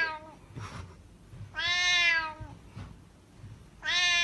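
A cat meowing: the end of one meow at the start, one long meow of about a second in the middle, and another beginning near the end.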